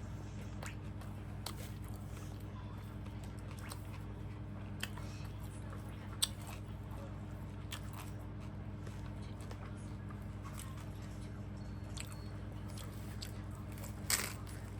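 A person chewing and biting food up close to the microphone (bún đậu mắm tôm: vermicelli with fried tofu), with scattered short clicks. A steady low hum runs underneath.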